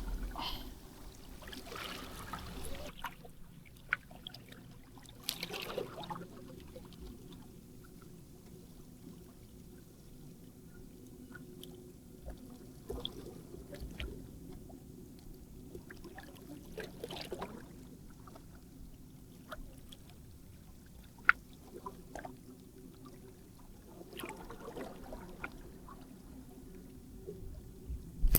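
Faint water lapping and trickling under a low steady hum, with scattered small clicks and knocks.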